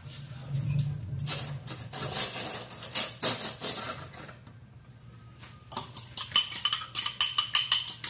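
Dishes and utensils clattering, then from about six seconds in a utensil clinking rapidly against a bowl as eggs are beaten with salt.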